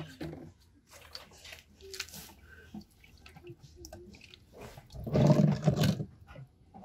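Water left in a car radiator after a flush dripping into a plastic basin, with scattered small knocks. About five seconds in, a louder sound lasts about a second.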